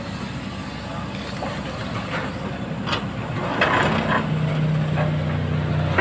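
Kobelco hydraulic excavator's diesel engine running, its note rising and holding steady under hydraulic load from a little past halfway as the arm swings the bucket. There are a few short knocks around the middle.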